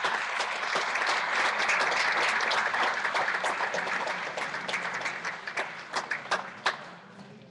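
Audience applauding, thinning to a few scattered claps about six seconds in before dying away.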